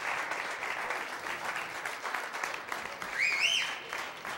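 Audience applauding, many hands clapping, with a rising whistle from someone in the crowd about three seconds in.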